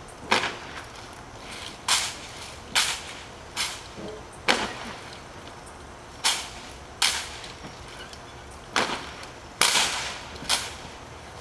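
A drill platoon's rifles being slapped and snapped in unison, together with heel strikes, making sharp single cracks. There are about a dozen of them, unevenly spaced roughly one every second, each with a short ring after it.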